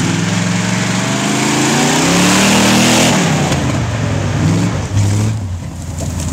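GMC pickup truck's engine revving hard as it drives through snow, climbing in pitch to a peak with a loud rush about two to three seconds in, then dropping back as the truck passes.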